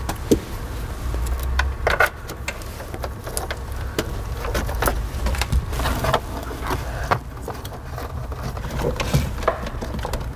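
Irregular knocks, clicks and rattles of wire and tools being handled as wiring is fed through a truck's firewall, over a low steady rumble.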